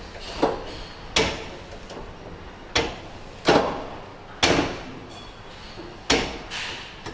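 Leg extension machine's weights clanking as one-leg extension reps are done: six sharp metal clanks at uneven intervals.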